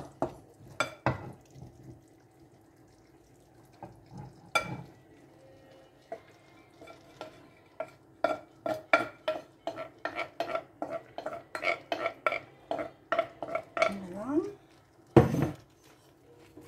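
A wooden spatula and a glass bowl knock against a pot as cooked spaghetti is pushed out of the bowl into the sauce. There are a few scattered clicks, then from about eight seconds in a quick run of knocks, about four a second, and one loud knock near the end.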